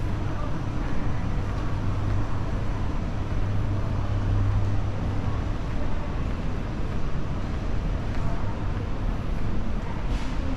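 Steady indoor ambience of a shopping-mall corridor: a low hum under an even wash of noise, the hum a little stronger in the first half. A faint brief clatter comes near the end.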